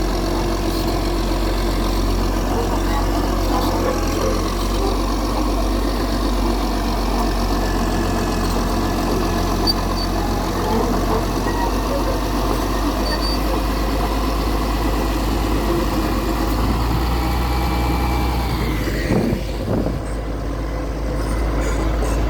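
A machine's engine running steadily at a low, even pitch. About nineteen seconds in, the sound briefly dips and changes, then carries on.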